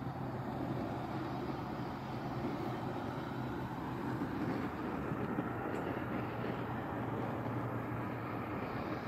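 Propane fire pit table's stainless-steel burner running at full flame, giving a steady rushing noise with a low hum beneath it.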